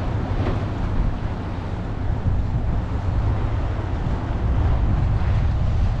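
Wind buffeting the microphone as a steady low rumble, over choppy river water.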